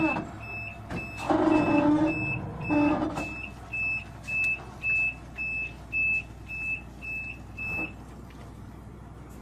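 Reversing alarm on a heavy machine beeping at one high pitch, about two beeps a second, then stopping near the end. A deeper tone sounds twice in the first few seconds.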